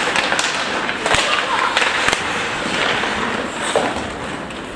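Ice hockey rink play: skates scraping on the ice and several sharp clacks of sticks and puck, with voices shouting across the rink.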